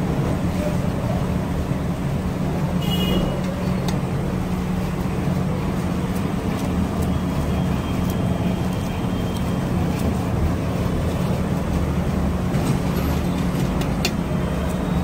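Steady low rumble of street traffic with an engine-like hum, and a brief high-pitched beep about three seconds in.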